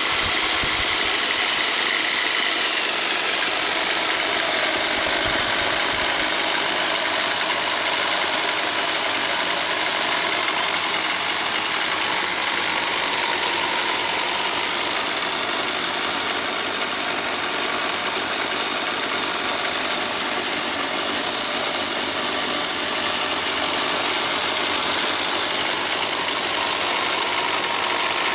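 Bosch electric drill running steadily, driving a milling attachment's small cutter through a brass workpiece to mill a slot. Its high whine drops in pitch about three seconds in and then holds steady.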